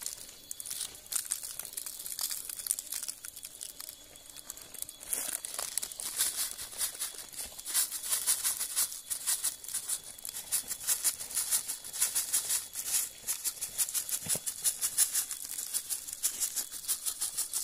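A small plastic bag of salt crinkling and rattling as it is shaken, sprinkling salt onto raw meat in rapid quick strokes. The shaking gets denser and louder about five seconds in.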